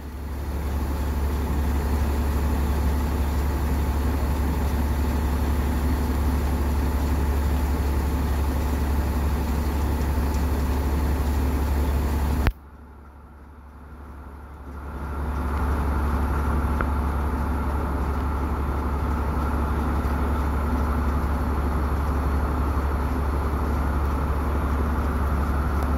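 Engine of an oil well service rig running at a steady speed, a loud low drone. About halfway through, the sound drops out abruptly and then builds back up over about two seconds.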